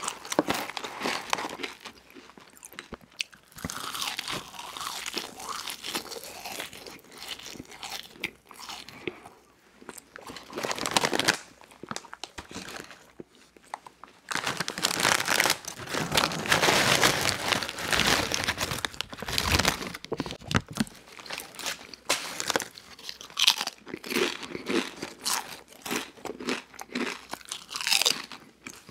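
Eating sounds: chewing French fries, the crinkling of a Doritos chip bag through the middle as the chips are tipped out, then crunching on Doritos tortilla chips.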